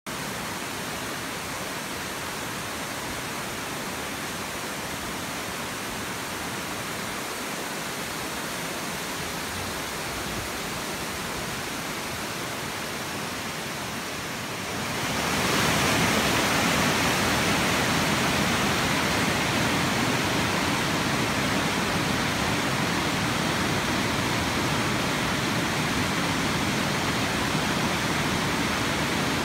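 Steady rush of Gibbon Falls, the Gibbon River's waterfall, first heard from afar and then louder and fuller about halfway through.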